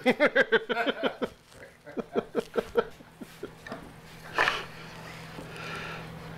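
A man chuckling in short repeated bursts that trail off, then a single short knock about four seconds in, over a faint steady hum.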